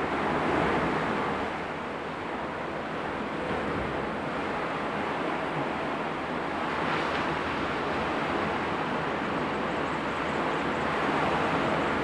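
Steady wash of ocean surf from breaking waves, swelling a little about half a second in and again near the end.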